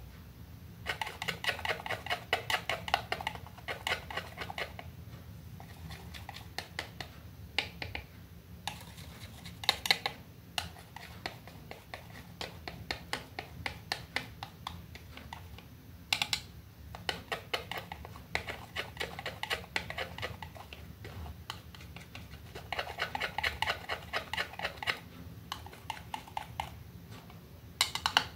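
Metal palette knife scraping and tapping against a plastic paint palette while mixing acrylic paint, in several bursts of rapid clicking strokes with quieter pauses between.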